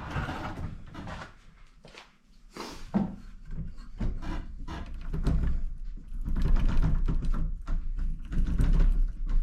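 A run of irregular knocks and clunks from engine and chain parts being handled and fitted onto a mini chopper frame, with a low rumble through the second half.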